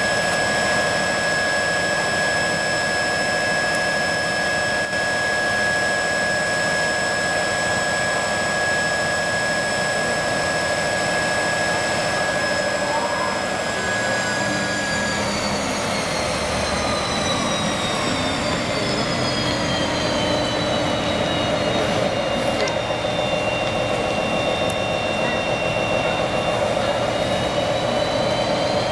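Class 57 diesel locomotive 57302's turbocharged two-stroke EMD 645 V12 engine running at high revs with a steady turbocharger whine. About halfway through the revs drop, the whine gliding down in pitch, then it starts to climb again near the end.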